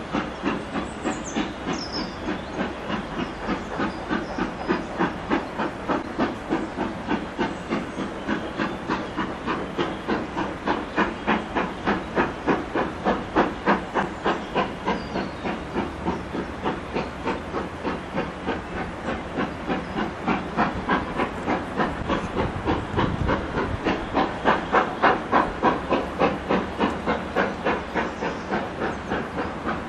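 Steam locomotive hauling a passenger train, its exhaust beating in a steady rapid chuff with steam hissing, working hard with a thick plume of exhaust.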